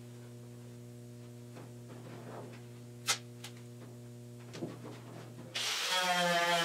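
Steady low electrical-sounding hum with a few faint clicks and one sharp click about three seconds in. Background music starts near the end.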